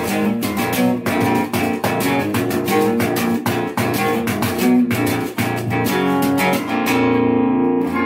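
Electric guitar and bass guitar playing a riff together: fast, tightly picked notes with short breaks, then a chord left ringing from about seven seconds in.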